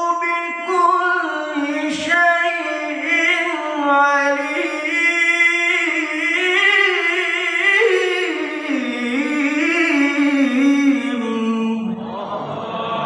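Solo male Qur'an recitation in the melodic tilawah (mujawwad) style: one voice holding long, ornamented melismatic phrases, with the melody stepping lower about eight seconds in. A brief click sounds about two seconds in.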